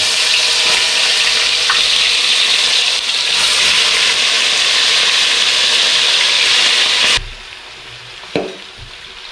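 Marinated chicken pieces sizzling loudly as they are dropped into hot coconut oil in a wide aluminium pan. The loud sizzle cuts off suddenly about seven seconds in, leaving a quieter frying hiss and a couple of clicks.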